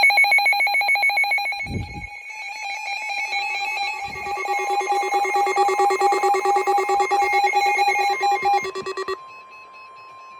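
Several NOAA weather radios sounding their alert alarms: fast trilling, pulsing beeps at a few pitches, with a second, lower-pitched alarm joining about three seconds in and two dull knocks. The pulsing stops about nine seconds in, leaving the broadcast's steady 1050 Hz NOAA Weather Radio warning tone.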